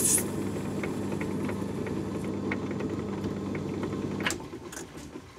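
Myford ML7 metal lathe running, a steady motor and drive hum with the brass workpiece spinning in the chuck and faint ticks over it. About four seconds in there is a click and the sound fades away.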